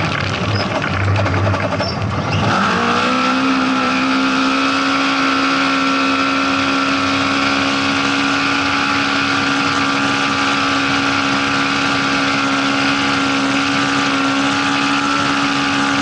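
Rally car engine heard from inside the roll-caged cockpit. The revs climb about two and a half seconds in and then hold at a steady high pitch over a constant hiss of road noise.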